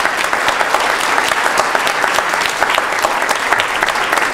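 A lecture-hall audience applauding: many hands clapping steadily.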